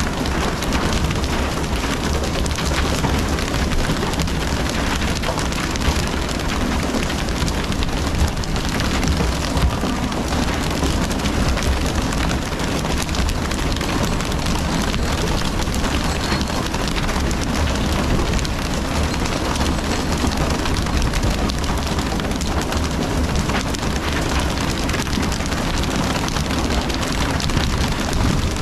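Steady rushing, splashing water noise from the sprays and wash along the side of a pole-and-line tuna boat, over a low rumble from the boat. A few brief louder knocks stand out about six to ten seconds in.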